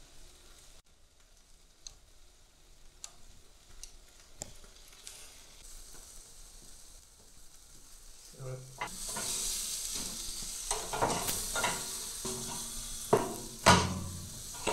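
Beef tri-tip sizzling on a charcoal grill grate, faint with a few small crackles at first. About eight seconds in the sizzle turns loud as the meat is lifted and turned with metal tongs, with tongs and meat knocking against the grate, the sharpest knocks near the end.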